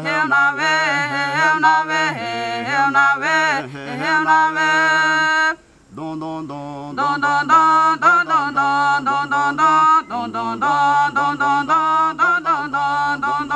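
Traditional Noke Koî chant sung a cappella by a man and a woman, long held and wavering notes with a low steady note under a moving higher line, breaking off briefly about halfway through.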